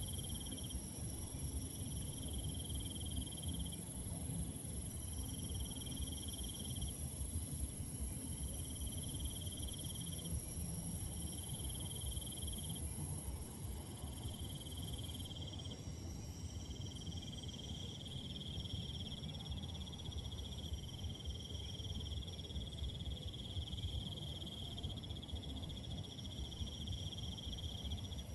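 Night chorus of crickets and other insects. A steady high shrill runs throughout, and a lower trill comes in repeated phrases of one to two seconds, running together in the second half. A low rumble sits beneath.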